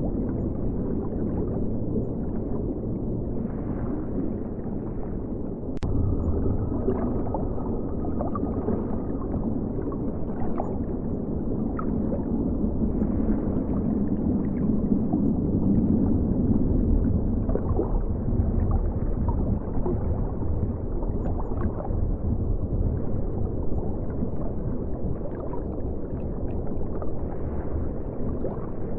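River current flowing and gurgling, recorded underwater: a deep, muffled, steady rush with no high sounds. One sharp click about six seconds in.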